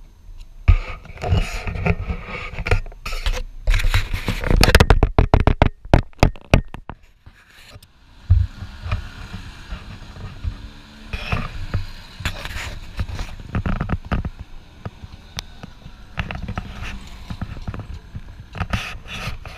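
Handling noise on the camera's microphone: dense scraping and rubbing with sharp clicks for the first several seconds, then a low rumble with scattered clicks.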